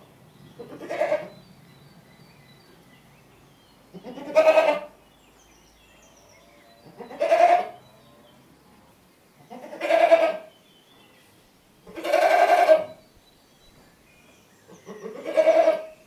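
A goat screaming: six loud bleating calls a few seconds apart, each lasting under a second.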